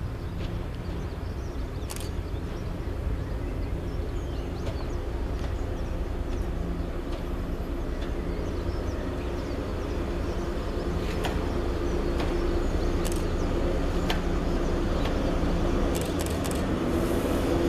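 Diesel locomotive's engine running as it approaches slowly, a steady hum that grows louder, with a few sharp clicks along the way.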